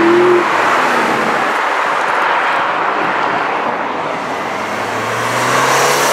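Cars accelerating past on a road: a brief rising engine rev at the start, then steady tyre and road noise, and a second car's lower engine note climbing slightly near the end as it comes by.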